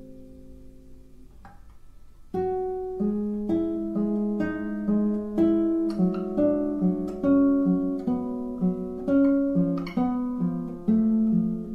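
Solo 2005 Manuel Contreras II concert classical guitar played fingerstyle. A held chord dies away, then a couple of seconds in a new phrase of plucked notes begins and runs on at about two notes a second.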